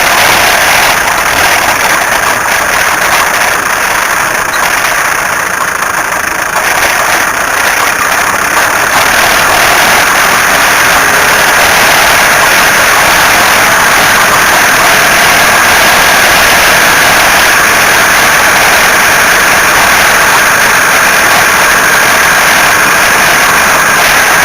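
A car making a loud, continuous harsh noise while its engine runs, steady and mostly in the middle-to-upper range, dipping slightly a few seconds in.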